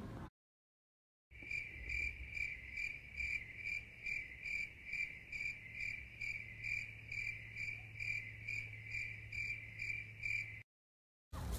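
Cricket chirping in a steady, even rhythm of about three high chirps a second, starting about a second in and cutting off abruptly near the end.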